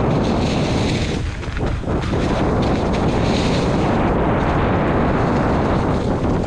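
Heavy wind buffeting the camera microphone during a fast downhill ride: a loud, steady rushing noise that eases briefly between one and two seconds in.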